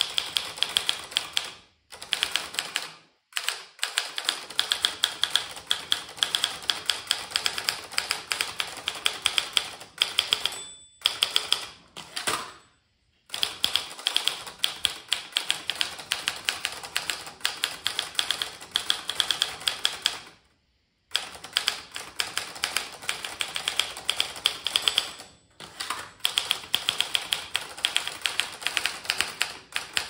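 Typing on a Groma Kolibri Luxus portable manual typewriter: rapid runs of sharp key and typebar clacks, broken by a few short pauses.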